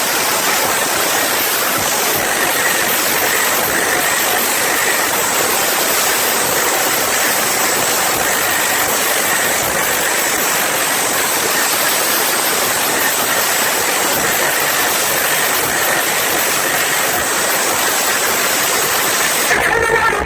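Large concert crowd cheering and screaming in one loud, steady roar, with no music beat underneath.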